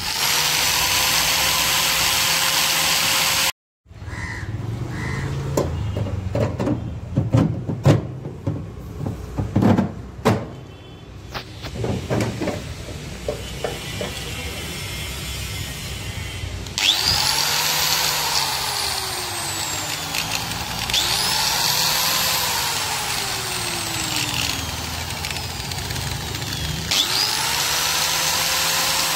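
A handheld power tool runs steadily for a few seconds. Then stainless-steel frame parts knock and clatter as they are handled and fitted together. In the second half the power tool is triggered about three times, each time spinning up quickly and winding down slowly in pitch.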